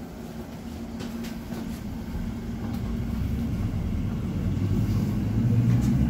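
Class 345 Elizabeth line train running through the tunnel, heard from inside the carriage: a low rumble with a steady hum that grows steadily louder, with a few faint clicks.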